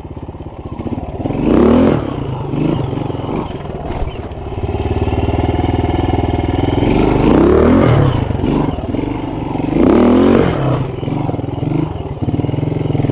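Honda RTL trials motorcycle's four-stroke single-cylinder engine running at low revs under load over rocks, with sharp throttle blips about two seconds in, around seven to eight seconds, and again near ten seconds.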